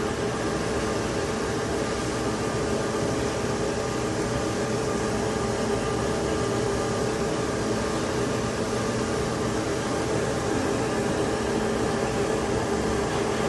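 Steady machine hum with several held tones over an even hiss, unchanging in level.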